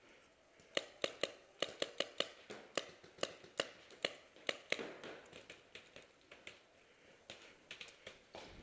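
Paintball markers firing, sharp pops in quick irregular strings of several shots a second, thinning out to scattered single shots after about five seconds.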